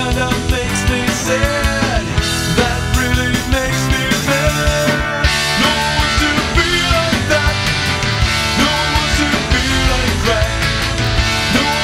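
1990s rock band recording: a loud, guitar-driven grunge-style song with drums.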